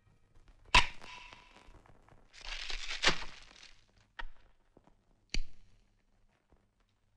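Handling sounds from a handbag: a sharp click, a short rustle, then two more sharp clicks as the clasp is worked.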